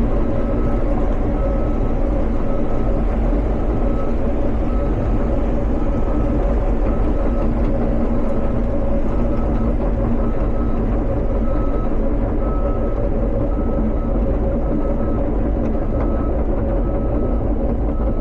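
Cat 320 excavator's diesel engine running steadily, with a short high beep repeating about once a second.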